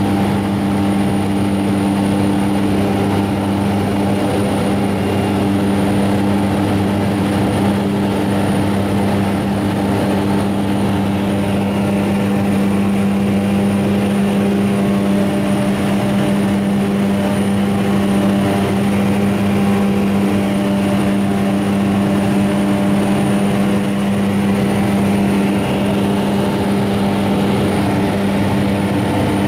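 Steady drone of a small propeller aircraft's engine and propeller heard from inside the cabin, holding one even pitch throughout.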